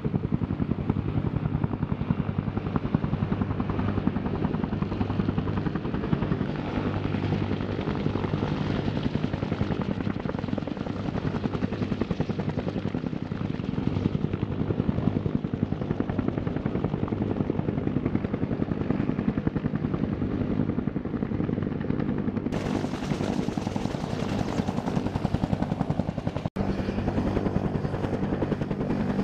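Bell AH-1 Cobra attack helicopters with two-blade main rotors running, a rapid even beat of the blades over a steady low engine hum. A very short dropout comes near the end.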